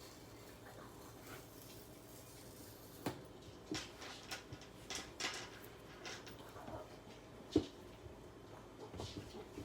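Handling of a smartphone's retail box and packaging: scattered light clicks, taps and short rustles that begin about three seconds in, with one sharper knock near the three-quarter mark.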